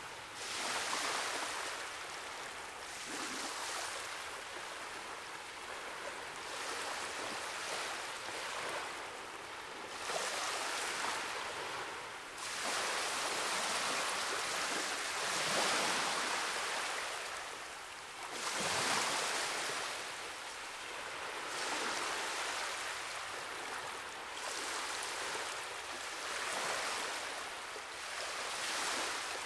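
Sea waves breaking and washing over rocks, a hiss that swells and fades every few seconds.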